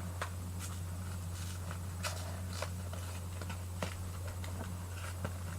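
Pokémon card booster pack's foil wrapper being handled and torn open: scattered small crinkles and snaps. A steady low hum runs underneath.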